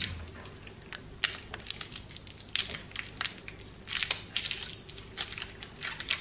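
Screwdriver tip picking and scraping at the plastic wrap sealing the cap of a small bottle of ceramic coating: a run of irregular short clicks, scratches and crinkles.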